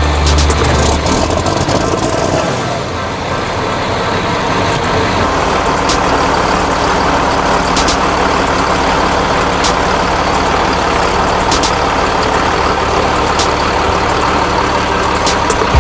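Heavy diesel engine running steadily, with sharp clicks or clanks now and then.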